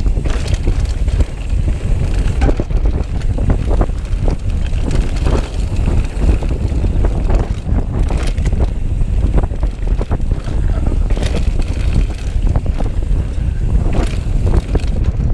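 Wind buffeting the microphone of a chest-mounted action camera on a moving mountain bike, with tyres running over a dirt trail and the bike clattering and knocking over bumps.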